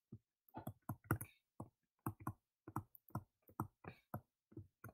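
Stylus tip tapping on a tablet screen during handwriting: an irregular run of faint short clicks, about three or four a second.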